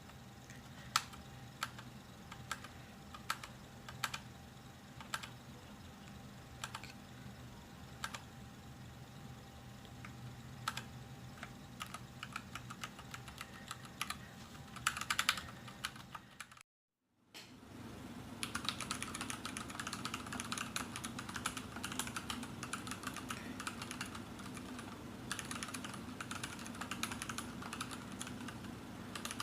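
Keystrokes on an Anne Pro 2 60% mechanical keyboard. At first they are single key presses about half a second to a second apart, with a quick flurry near the middle. After a brief silence about two thirds of the way in, they become fast continuous typing.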